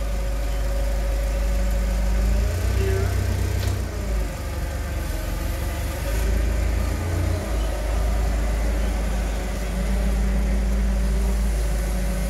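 Propane-fuelled Nissan forklift engine running as the truck drives with a load: a steady low rumble with a whine that sways slightly up and down in pitch.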